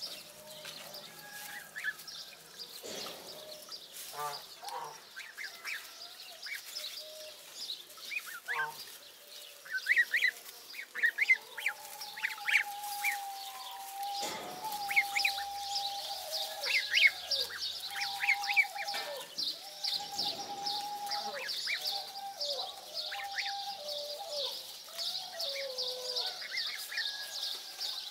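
A flock of 22-day-old African goose goslings peeping and whistling while they feed: many short, gliding calls, with longer held whistles from about halfway through. A steady, pulsing high buzz runs underneath from about the middle on.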